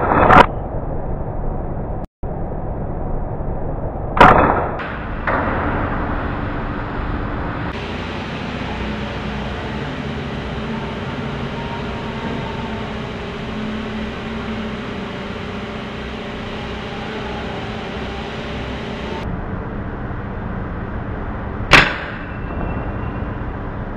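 Three shots from an FX Dreamline Pup .22 PCP air rifle set to its low 15 foot-pound power: a sharp crack just after the start, another about four seconds in, and a third near the end, each with a short ringing tail.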